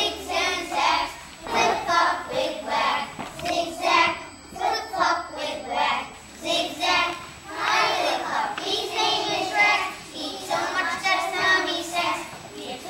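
A group of young children singing a song together in unison, in phrases with short breaths between them.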